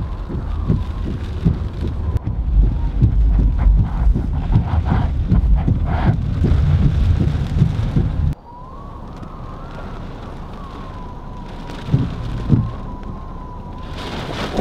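Hurricane wind and heavy rain battering a car, heard from inside, with gusty low rumbling buffeting. A little past halfway it cuts suddenly to a quieter, steady rain hiss with a few thumps.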